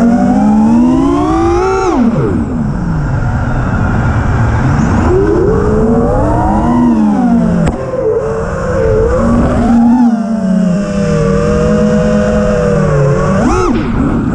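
A 6S FPV freestyle quadcopter's 2406 brushless motors and propellers whining, their pitch rising and falling with the throttle over a few seconds at a time. Near the end the pitch swoops up and down sharply several times as the quad flips and rolls.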